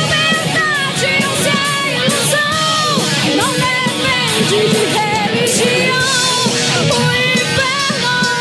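Rock song playing: a singer over a full band with electric guitar, at steady loudness.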